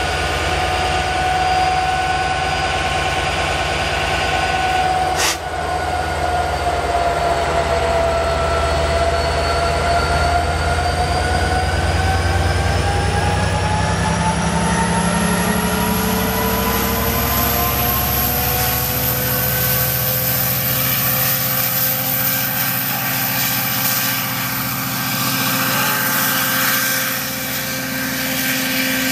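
An LIRR train of C3 bi-level coaches rolls past as it pulls away, pushed by a DE30AC diesel-electric locomotive at the rear; the locomotive's engine passes close, its note rising as it accelerates, and then draws away. A sharp click about five seconds in.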